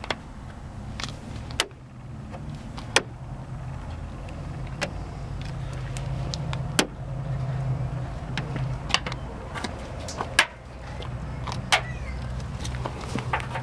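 Magnets clicking sharply as they snap onto the 1940 Ford coupe's steel body panels, over a dozen times at irregular intervals, over a low steady rumble.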